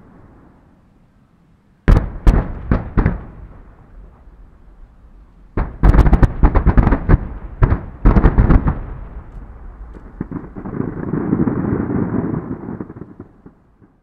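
Fireworks going off: a quick run of four or five sharp bangs about two seconds in, then a dense volley of many bangs from about six to eight and a half seconds. After that comes a softer rumble with fine crackle that fades out near the end.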